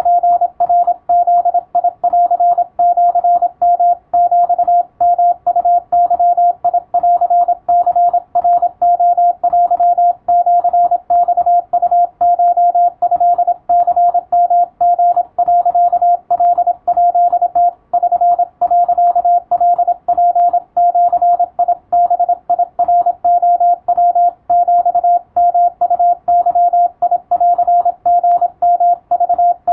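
Morse code (CW) signal: a single steady beep tone keyed on and off in dots and dashes at a brisk, even sending speed, with short pauses between characters.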